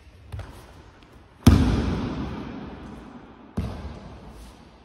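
A person thrown onto tatami-style judo mats: a loud breakfall slap and body thud about a second and a half in, echoing in the large hall, then a second, quieter thud about two seconds later as he is taken down and pinned. A light knock of a stamping foot comes just before.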